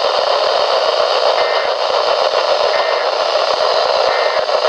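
Emergency Alert System broadcast over a poor radio signal: steady, loud static hiss. Three short, faint data bursts come through it about 1.4 s apart, the pattern of the EAS end-of-message tones.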